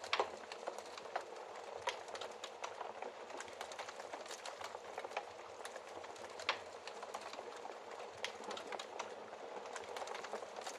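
Wood fire crackling in a fireplace: a steady hiss with frequent small irregular pops and snaps, a sharper pop right at the start and others about two and six and a half seconds in.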